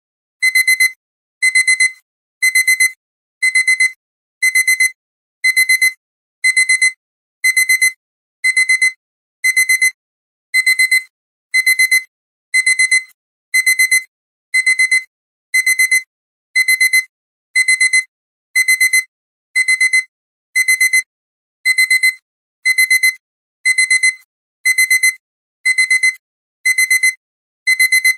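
Electronic alarm clock beeping: loud, high-pitched double beeps repeating about once a second without a break.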